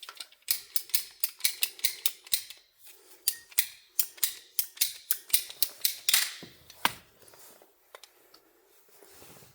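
A rapid run of sharp, mechanical clicks from a hand tool being worked, about four or five a second for several seconds, then slowing to a few scattered clicks.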